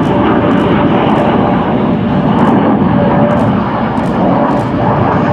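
Two F-104 Starfighters' General Electric J79 turbojet engines, loud and steady as the pair flies by in close formation, with a faint steady whine running through the jet noise.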